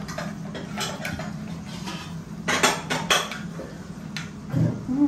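A toddler's spoon and fork clinking and scraping against her bowl as she eats, in scattered clicks with a quick run of clinks about two and a half to three seconds in.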